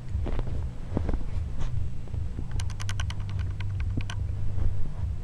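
Pomeranian chewing and gnawing on a fleece blanket: scattered clicks of its teeth over a constant low rumble, with a quick run of about ten clicks a little past halfway.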